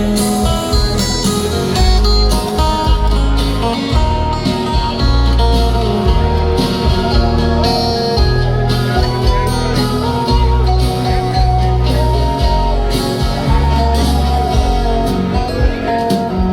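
Live acoustic country music: acoustic guitar playing a song's instrumental intro, with deep low notes repeating under it.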